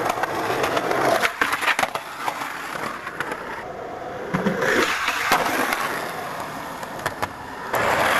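Skateboard wheels rolling on concrete, with sharp clacks and knocks of the board against the ground. The sound changes abruptly several times as short clips cut from one to the next.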